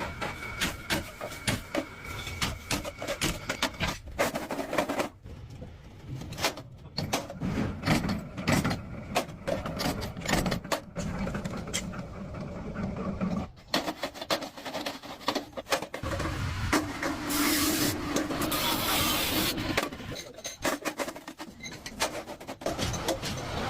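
Workshop sounds of hand work on parts: a dense run of clicks and knocks with rubbing and rasping, changing character every few seconds.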